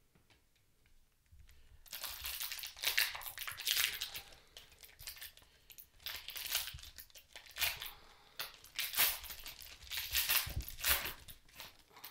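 Foil wrapper of a Panini Prizm basketball card pack being torn open and crinkled by hand. It comes as an irregular run of crackling rips that starts about a second and a half in.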